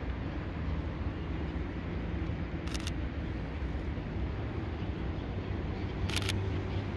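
Steady low outdoor rumble with a low engine hum, with two brief hissing bursts, one about three seconds in and one about six seconds in.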